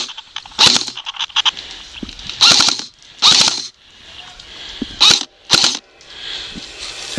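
Airsoft guns firing in short bursts, about half a dozen sharp bursts a second or so apart, with a quick string of rapid clicks about a second in.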